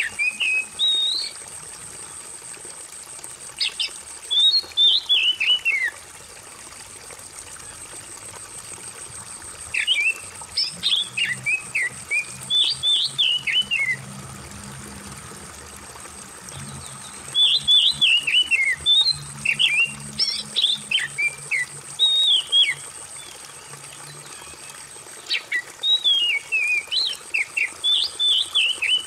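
Oriental magpie-robin (kacer) singing bouts of quick, varied whistled phrases, with a few seconds' pause between bouts, over a steady murmur of trickling water.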